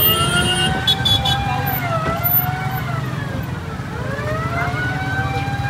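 Wailing siren sweeping slowly up and down in pitch, over a steady low engine rumble.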